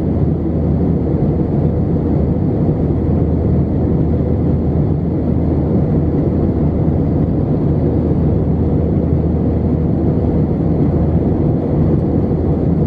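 Steady cabin noise of an Airbus A320 in flight, heard from a window seat: jet engines and airflow blend into a deep, even rumble with a faint steady hum.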